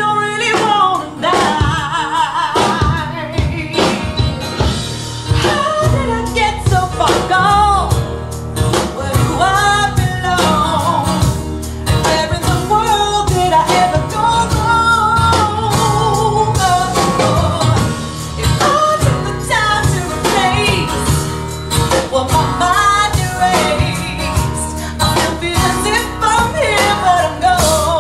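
Music: a song with singing over instruments and a steady beat.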